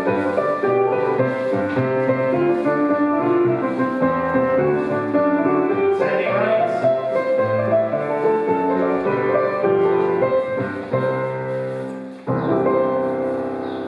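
Jig tune played for Scottish country dancing, with many notes and chords sounding together. About twelve seconds in the tune breaks off and a final chord is struck and left ringing.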